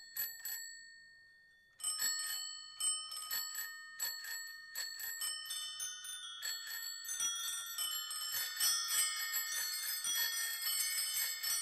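Many bicycle bells ringing as the soundtrack's bell interlude. A few rings, then a short pause about a second in, then rings coming faster and overlapping more and more densely.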